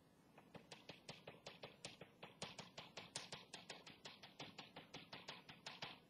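Chalk tapping on a blackboard in quick, short hatching strokes, about five a second, as a piston is shaded in with slanted lines.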